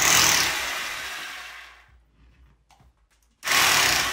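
Worx hammer drill with a 5 mm bit drilling into the wall, then let off and winding down over about a second and a half. After a short pause with a few faint clicks, it is triggered again in a sudden brief burst near the end and winds down.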